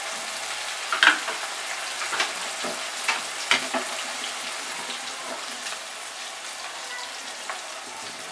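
Chopped tomato frying in hot oil in a kadai: a steady sizzle, with a handful of short knocks and scrapes of a stirring utensil against the pan in the first half.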